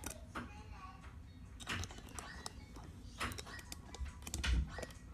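Scattered clicks and light knocks of a Brother sewing machine's plastic parts being handled, around the bobbin cover being closed, several times at uneven intervals.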